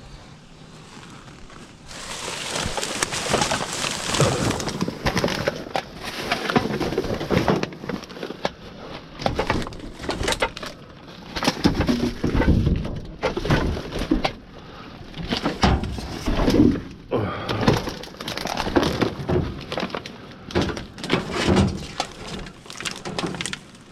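Junk being rummaged and shifted by hand, with irregular clattering, knocking and scraping of hard discarded items against each other, starting about two seconds in.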